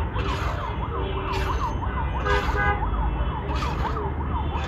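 An emergency-vehicle siren yelping, its pitch swinging up and down about four times a second. Under it, a metal ladle scrapes through hot sand in an iron wok about once a second.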